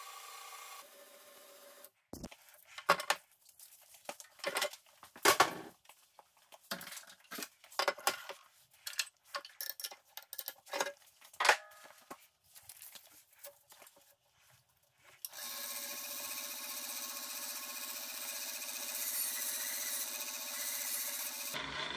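Metal clinks and knocks as a wrench works a bolt on a knife maker's belt grinder, then, about 15 seconds in, the belt grinder starts and runs steadily.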